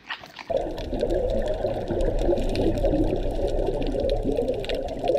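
Underwater sound picked up by a diver's camera, cutting in abruptly about half a second in. It is a dense, muffled rush of water with the bubbling of a scuba regulator's exhaust.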